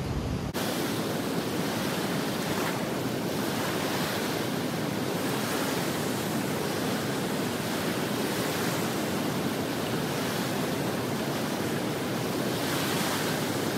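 Small river waves washing onto a muddy shore, with wind on the microphone: a steady rush of water that swells a little every few seconds.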